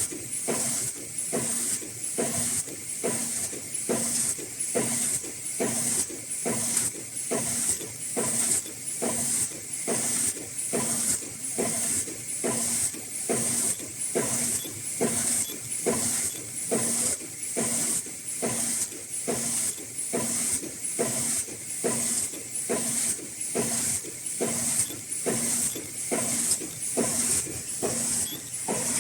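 High-speed N95/FFP2/FFP3 mask-making machine running in a steady cycle: a hiss and a knock repeating about one and a half times a second.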